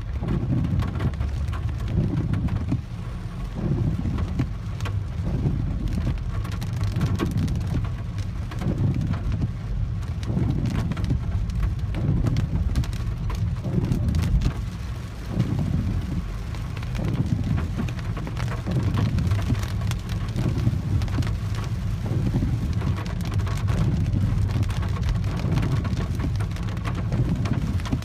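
Heavy rain pattering on the roof and windshield of a Peugeot 408, heard from inside the cabin, over a low rumble that swells and fades about once a second.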